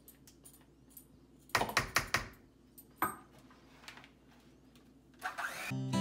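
A fork knocking and scraping against a cup and a mixing bowl as mashed banana is emptied out: a quick cluster of sharp knocks about one and a half to two seconds in, and one more knock a second later. Strummed acoustic guitar music starts near the end.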